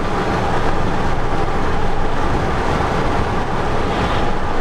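Car driving at road speed: steady road and wind noise heard from inside the cabin.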